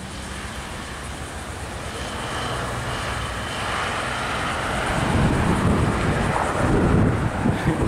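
Amtrak GE P42DC diesel locomotive approaching with its passenger train, the engine and rolling rumble growing steadily louder and much stronger from about halfway through.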